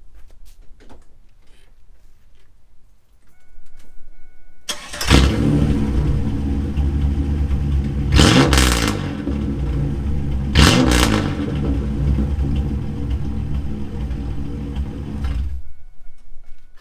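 1997 Camaro's 3800 Series II V6 started with the muffler cut off, the exhaust open after the mid pipe: it catches about five seconds in, idles, is revved briefly twice, and is shut off near the end. It runs stupidly loud without the muffler, though not revved high.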